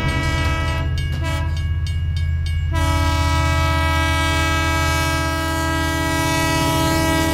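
Narrow-gauge train running with a steady low engine hum, some clicks, and from about three seconds in a long held tone that does not change in pitch.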